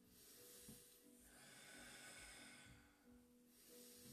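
Faint breathing: two long, airy exhalations, one at the start and one about three seconds in. These are controlled breaths, paced with a held Pilates arm-and-leg lift.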